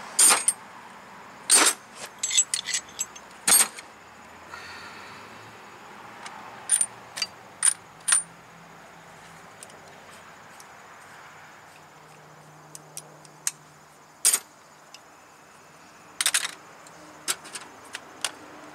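Metal hand tools clinking and clattering as they are picked through in a metal toolbox: a scattering of sharp clinks, some in quick little clusters, with quiet gaps between.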